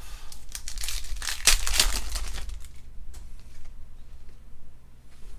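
Plastic trading-card pack wrapper crinkling as it is handled and opened, loudest in the first half and fading about three seconds in, followed by a few light clicks.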